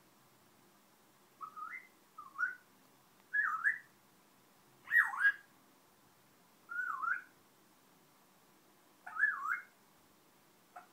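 Congo African grey parrot whistling her newly learnt whistle over and over: six short phrases of swooping up-and-down glides with short pauses between, the loudest about five seconds in.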